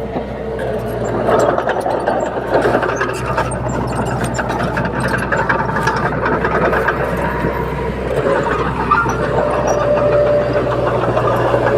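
Heavy diesel engine of a bulldozer running steadily under load, with a low hum and scattered light clanks.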